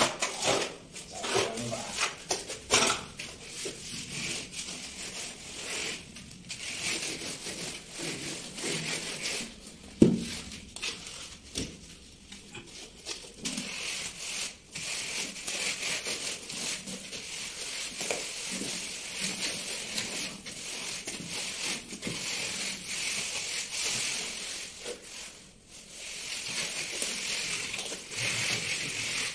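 Plastering tools, a straightedge among them, scraping and rubbing over wet cement plaster on a wall in repeated irregular strokes. Short knocks come and go, the loudest about ten seconds in.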